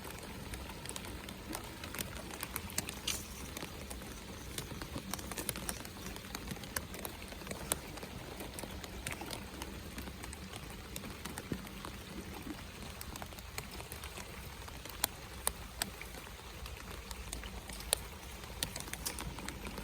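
Rain falling steadily, with many scattered sharp ticks of individual drops striking close by.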